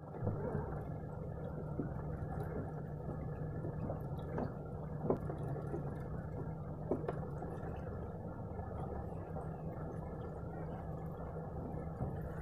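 Outboard motor of a Hurricane deck boat running steadily, with water gurgling and slapping against the hull and a few sharp knocks.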